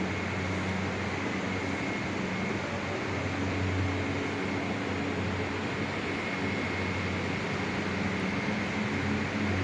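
Steady low hum with an even hiss and a faint high whine, unchanging throughout.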